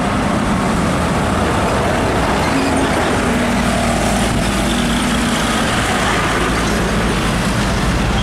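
Old heavy diesel cargo truck driving past with its engine running steadily in road traffic. Its deep rumble grows stronger from about three seconds in as it draws level.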